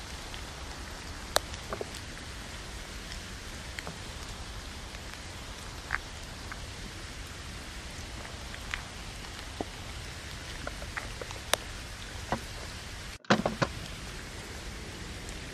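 Steady rain on a tent, with scattered light knocks and clicks from vegetables and a wooden cutting board being handled. About 13 s in, a short cluster of louder knocks as a portable gas stove is set down on the board.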